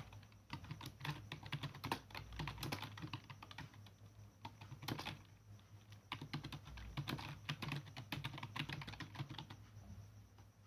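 Fast typing on a computer keyboard: steady runs of keystrokes with brief pauses, stopping about a second before the end.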